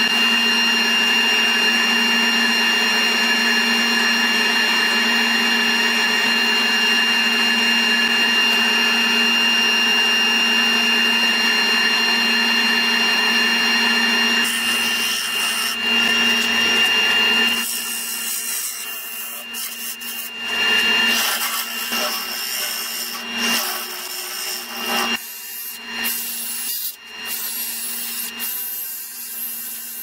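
Laguna 1836 wood lathe running at speed with a steady motor whine. About halfway through, sanding starts against the spinning bowl, rubbing on and off, with a sanding disc on a cordless drill pressed to the face near the end.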